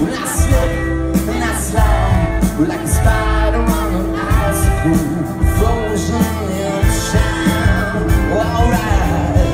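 Live rock band with a string section playing, a lead vocalist singing over drums, guitars and violins.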